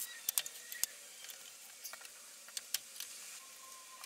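Scattered light clicks and taps of small metal hardware and tools being handled while assembling a wooden frame.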